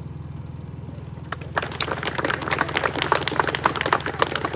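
A small audience applauding, starting about a second and a half in, over a steady low hum.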